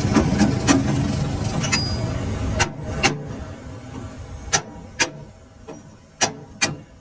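Workshop machinery running with a rattle, dying down about two and a half seconds in, then sharp knocks in three pairs, each pair a fraction of a second apart.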